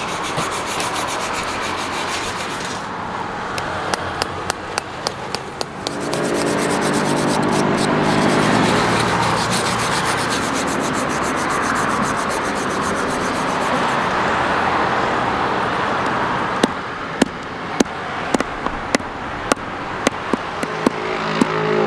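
Charred grilled buffalo skin being scraped clean against a wooden stump, a continuous rasping rub. About three quarters of the way through, a ball-peen hammer begins pounding the skin on the stump: about a dozen sharp blows, roughly two a second.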